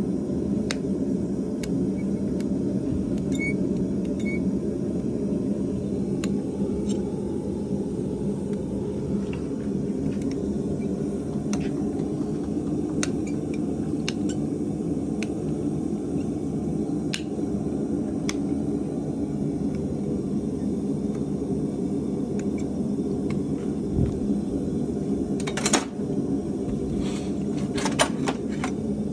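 Steady low mechanical hum, with scattered faint clicks and a few sharper ticks near the end.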